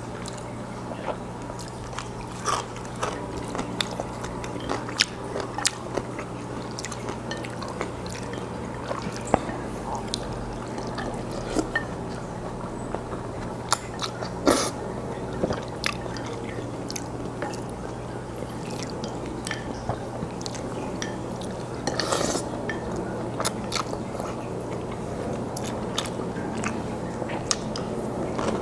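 Close-miked mouth sounds of a man eating jjajangmyeon (Korean black bean noodles): irregular wet clicks and smacks of chewing, over a steady low hum.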